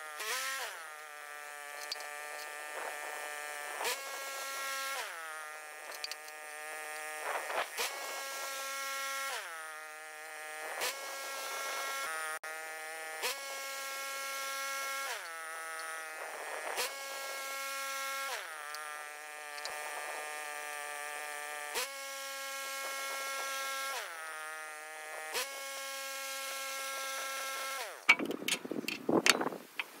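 Sped-up sound of a Woodland Mills HM126 band sawmill's gas engine and blade working through a series of cuts. The buzzing engine note steps and glides up and down every second or two as each pass starts and ends. Near the end it gives way to a few seconds of knocks and clatter as the sawn boards are handled.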